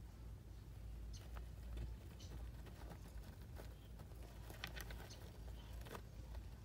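A white mouse scurrying over coconut-husk bedding in a plastic tub: light, scattered scratches and taps, thickest from about four and a half to six seconds in, over a low steady hum.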